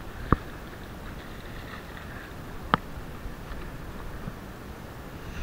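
Two short, sharp knocks about two and a half seconds apart, over a steady background hiss.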